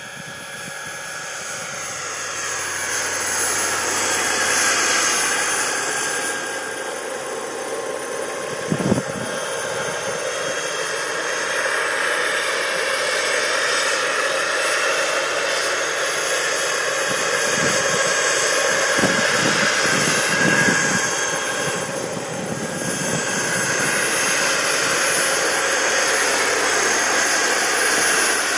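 Radio-controlled scale Lama helicopter in flight, its engine giving a steady high whine. The whine grows louder over the first few seconds as the model comes closer, then rises and falls as it manoeuvres. A brief thump comes about nine seconds in.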